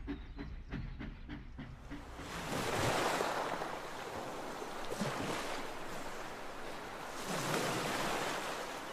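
Sea waves washing in on a shore, with wind. The wash swells twice, about two and a half seconds in and again near the end. Before the waves rise there is a low, regular knocking, about three or four strokes a second, for the first two seconds.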